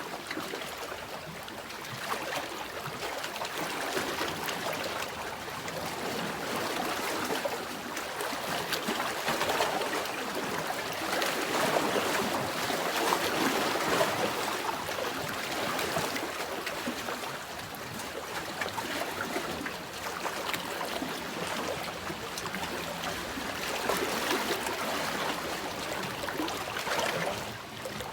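Sea waves washing in and out on a shore, a continuous rush of water that swells and eases every few seconds.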